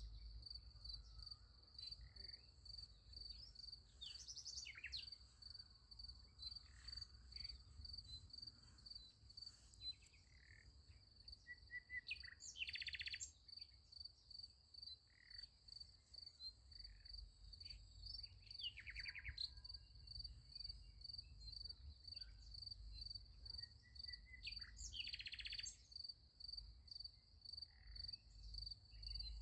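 Crickets chirping in a steady, evenly pulsing high trill, with a few short bird calls breaking in over it.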